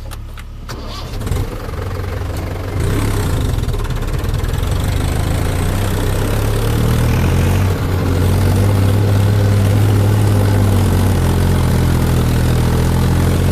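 Diesel tractor engine throttling up as the tractor pulls away with a freshly loaded mud trolley. It grows louder in steps over the first several seconds, then runs steadily loud.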